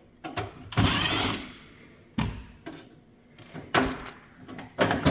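Irregular metal clicks and knocks, with a short scraping rush about a second in, as parts of a Whirlpool vent hood are handled and taken apart.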